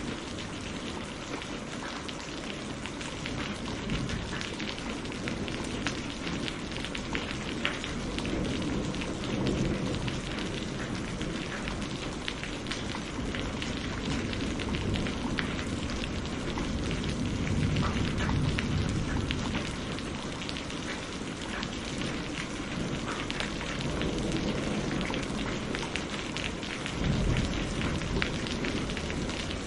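Steady rain falling on a surface: a continuous hiss dense with fine drop patter, with a low rumble swelling up and fading away several times.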